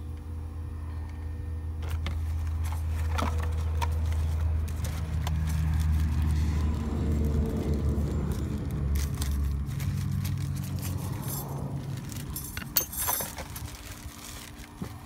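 Cardboard and paper packaging rustling as new ceramic brake pads and their small metal hardware clips are unpacked, with light metal clinks, a sharper cluster of them near the end. A vehicle's low rumble swells and fades in the middle.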